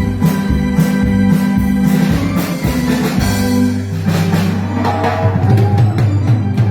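Instrumental electronic keyboard music: held keyboard notes over a bass line and a steady drum-machine beat.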